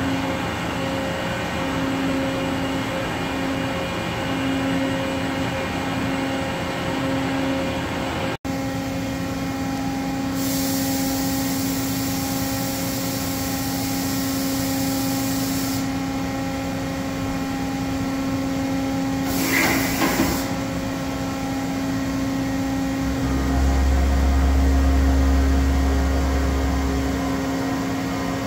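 Doosan DCM 2740 CNC bridge mill powered up and running: a steady machine hum with a constant tone. Partway through, a hiss joins it for about five seconds, a brief burst follows later, and a deep rumble lasts about four seconds near the end.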